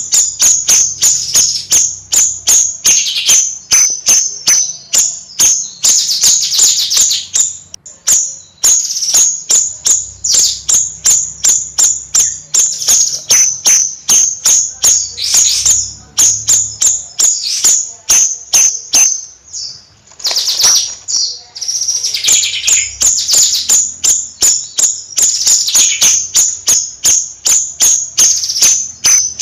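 Bayeman (siri-siri) songbird singing a loud, rapid chattering song of sharp, high chirps, several a second. The song pauses briefly about 8 and 20 seconds in.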